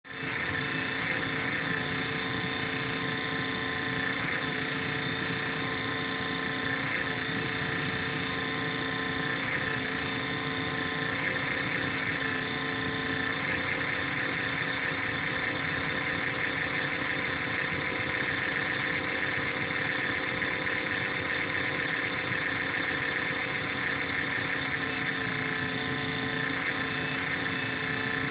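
INSYS GameForce laptop's cooling fan running with a steady whine of several pitched tones over a rushing noise, its pitch wavering slightly now and then; a strange noise, which the owner takes for abnormal. Recorded through a phone's microphone, somewhat distorted.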